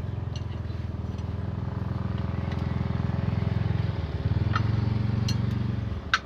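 Truck's diesel engine running at a steady idle, then shutting off about six seconds in.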